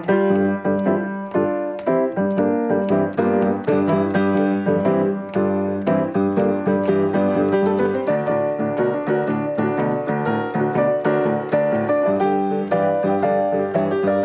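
Piano playing a steady stream of chords and notes, struck at a brisk, even pace of about three or four a second.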